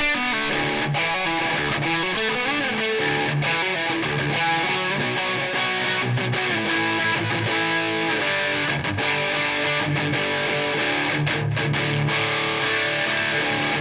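PRS S2 Studio electric guitar played through an amp, a continuous run of strummed chords and picked notes with no pauses.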